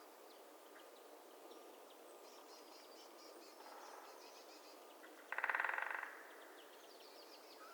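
Quiet winter swamp ambience with thin, high bird calls. About five seconds in, a woodpecker drums one short rapid roll, the loudest sound.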